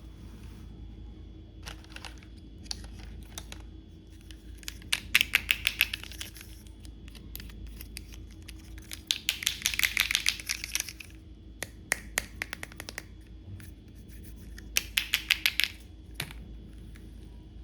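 Toy doctor set and its plastic packaging being handled: three bursts of rapid clicking and rattling, with single clicks and taps in between.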